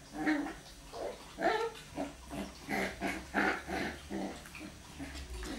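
Small Scottish terriers growling in play over a ball: a quick run of short, rough growls, two or three a second, fading toward the end.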